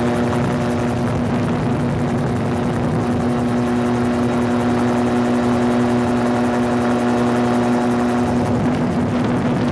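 Air Command gyrocopter's 1000cc four-stroke Yamaha RX1 snowmobile engine and propeller holding a steady cruise drone in flight, with wind rush over the open cockpit.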